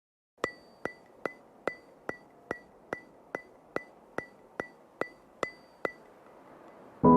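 About fourteen sharp, evenly spaced ticks, a little over two a second, each with a short ring; background music begins near the end.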